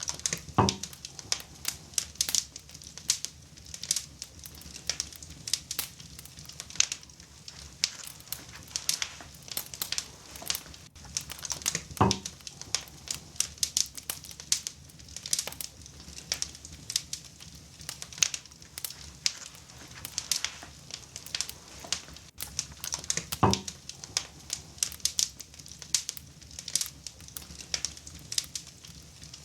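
Wood fire crackling in a fireplace's cast-iron firebox: a steady run of sharp irregular pops and snaps, several a second. Three louder, duller pops come about eleven seconds apart.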